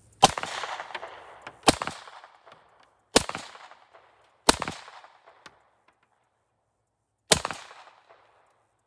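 Five suppressed 9mm pistol shots with subsonic ammunition through a short GSL Trinity suppressor. Each is a sharp crack with a short echo. Four come about a second and a half apart, then a fifth after a longer pause. The report is about .22 level: a little sharper than the longer stealth-model suppressor, because the short can has less room for the gas to dissipate.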